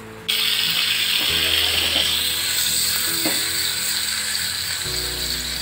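Cashews sizzling in hot ghee in a small steel tempering pan, the hiss starting suddenly just after the start as they hit the fat and then going on steadily.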